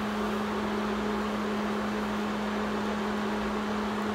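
Steady electric hum with a fan's even whoosh: a kitchen appliance's motor or cooling fan running at one speed.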